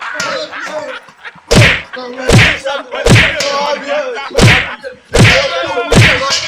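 Six hard whacks of blows landing, about one every three-quarters of a second with a short pause in the middle, as a metal basin is brought down on a man. A voice cries out continuously between the blows.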